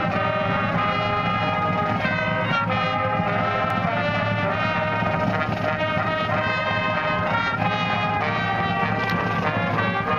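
Marching band brass section playing slow, sustained chords, the trombones and trumpets holding long notes; the crowd's standing with hand over heart marks it as the national anthem.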